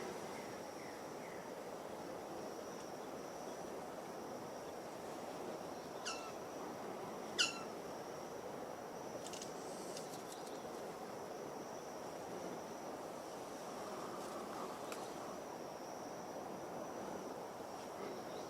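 Forest ambience: a steady high insect-like whine over a low hiss, with two quick, sharply falling bird calls, about six and seven and a half seconds in, the second louder.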